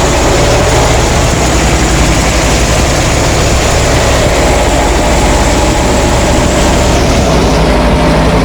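Heavy engine of wheat-harvesting machinery running steadily and loudly, a dense mechanical din.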